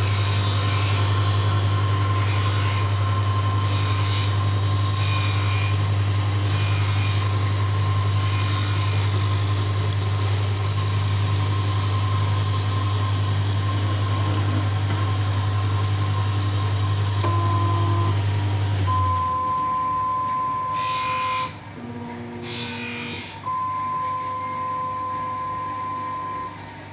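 Supore LE-520 automatic lens edger grinding a spectacle lens: the motor runs with a steady low hum under the hiss of the lens on the grinding wheel. About two-thirds of the way through, the hiss and then the hum stop. A steady high tone remains, broken off briefly for a couple of seconds.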